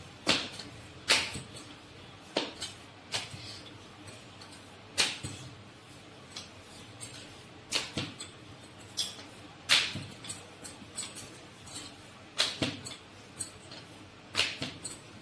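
Wooden rolling pin knocking and clacking against a bamboo board while thin dough is rolled out. A dozen or so sharp knocks come at irregular intervals.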